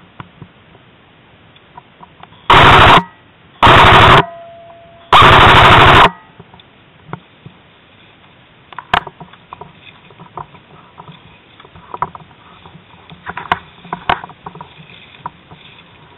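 Airsoft gun firing three full-auto bursts close by, each under a second long, the third and longest about five seconds in. Scattered fainter snaps and clicks follow.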